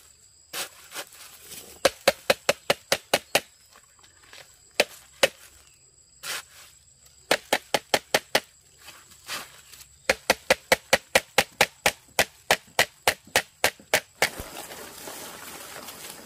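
A blade chopping rapidly on wood, in quick runs of sharp strikes at about four to five a second with pauses between the runs. A steady hiss comes in near the end.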